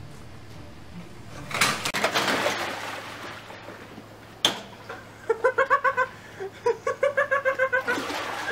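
A person plunging into an above-ground pool, a big splash and a rush of water that lasts a second or so. A few seconds later comes quick, rhythmic laughter in two bursts.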